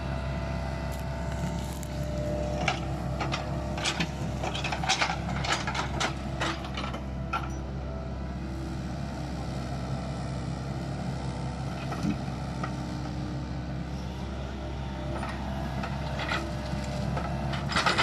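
Hitachi tracked excavator's diesel engine running steadily under load as it works logs, with a run of sharp wooden knocks and clanks from about three to seven seconds in and again near the end as its bucket and thumb grab and move pine logs.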